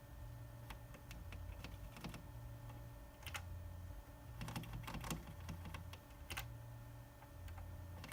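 Faint, irregular clicks and taps, a few of them bunched together about halfway through, over a low hum that keeps switching on and off.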